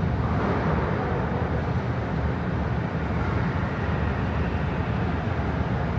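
Steady low rumble and rushing noise inside the cabin of an Airbus A320neo airliner on the ground.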